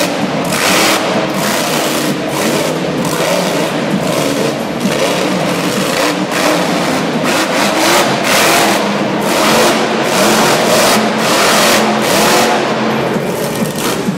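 Monster truck engine revving hard, the throttle surging again and again as the truck drives and turns.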